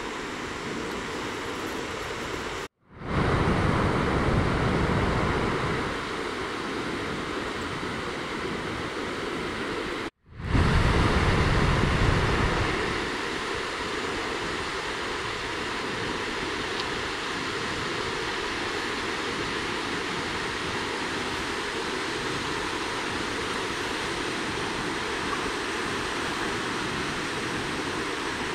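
Ocean surf breaking and washing in: a steady rushing noise. It cuts out abruptly twice, and each time it comes back louder and deeper for a few seconds before settling.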